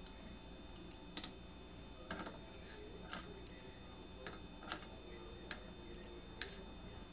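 A Pacific parrotlet bathing: faint, irregular light clicks and small splashes, about seven of them spread unevenly.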